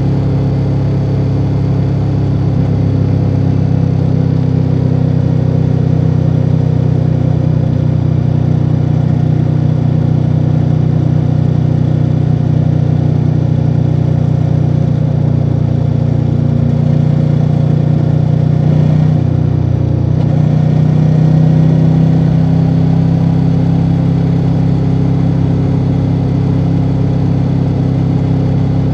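2024 Ducati Multistrada V4 Rally's V4 engine through its stock exhaust, running at a steady cruise. Its note holds mostly level, with a brief dip about two-thirds in before it picks up again.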